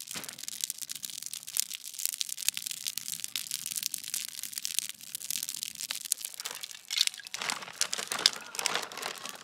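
Wood fire of split kindling crackling and popping in a steel fire ring, a dense run of sharp snaps. Near the end a paper bag of hardwood lump charcoal rustles and crinkles as a hand reaches into it.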